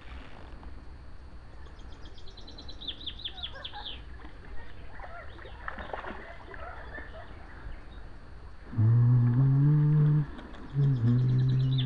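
A hooked fish splashing at the surface of a lake, with a small bird trilling. Near the end come two long, low calls, each about a second and a half, much louder than the rest.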